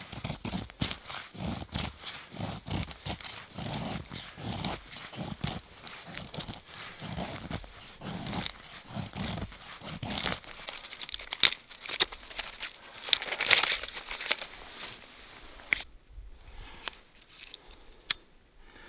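Handling noises of a fire being laid on snow: split birch logs knocked into place, dry twigs rustling and crackling, and snow crunching under knees and hands. It is a dense run of irregular clicks and crunches that thins to a few scattered clicks near the end.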